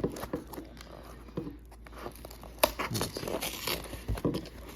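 Cardboard shipping box being cut open and pulled apart by hand: packing tape slit and torn, with crinkling rustles of cardboard and packing and a few sharp clicks and knocks.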